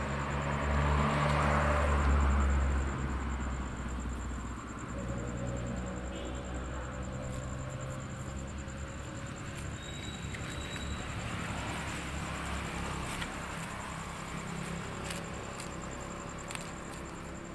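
A motor vehicle's engine rumbles close by. It is loudest in the first three seconds as it passes, then settles into a steady, lower engine and traffic hum.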